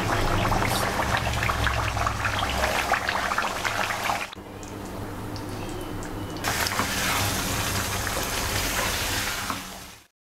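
Chicken curry gravy bubbling and sizzling in a wok, a steady hiss full of small pops. It drops quieter for about two seconds near the middle, then comes back, and cuts off just before the end.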